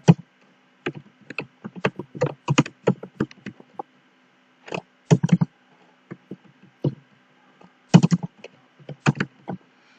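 Keystrokes on a computer keyboard, typing a word in irregular runs of quick clicks with short pauses between them.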